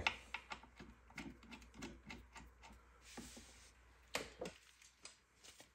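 Light metallic clicks and ticks of a bolt being started by hand into a Honda CB450T's front brake caliper mount, with a couple of louder clicks about four seconds in.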